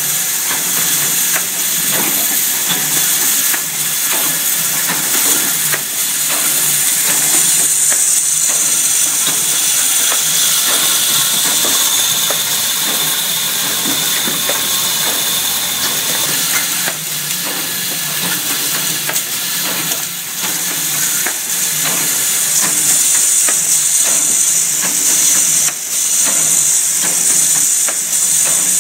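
Hang 150-08 automatic double-head ring-binder riveting line running: a steady hiss over a dense clatter of small clicks and knocks from the feeding and riveting mechanisms.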